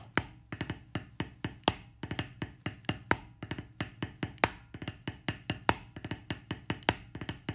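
Drumsticks tapping a rubber practice pad, playing the drag paradiddle #1 rudiment: a steady stream of sharp taps with quick double grace-note drags and regularly recurring louder accented strokes.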